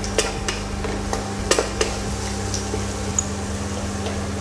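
Wooden spatula stirring chopped onions and cashews frying in ghee in a nonstick kadai, with several sharp knocks of the spatula against the pan in the first two seconds. After that the onions sizzle quietly with the spatula resting in the pan.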